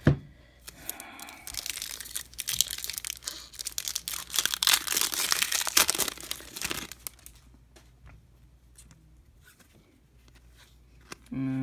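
A foil baseball card pack wrapper being torn open and crinkled for several seconds, followed by quieter faint clicks of cards being handled. A short hummed vocal sound comes near the end.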